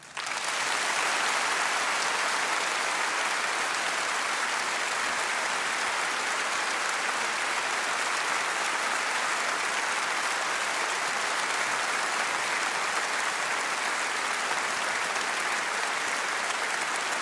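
Large audience applauding: dense clapping that starts suddenly and holds at an even level.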